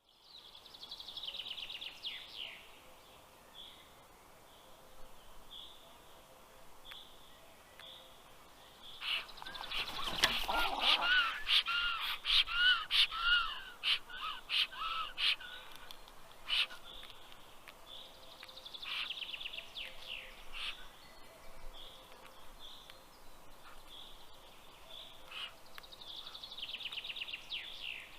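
Black stork chicks giving their greeting calls to a parent arriving at the nest: a loud run of repeated raspy calls with clattering knocks, starting about nine seconds in and lasting about six seconds. Forest songbirds sing short trills before and after it.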